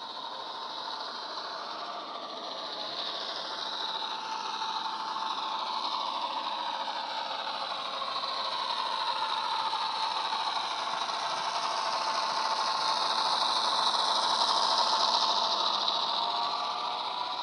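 Model Irish CIE 121 class diesel locomotive's DCC sound decoder playing its diesel engine sound through the model's small speaker, with the rattle of the model train's wheels on the track. It grows louder as the train approaches, and is loudest as the loco and wagons pass near the end.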